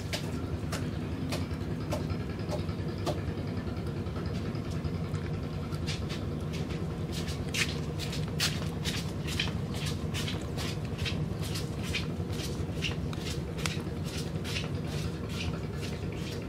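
A kitten chewing a small raw fish: a few sparse clicks at first, then a rapid run of chewing clicks, several a second, from about six seconds in. A steady low rumble runs underneath.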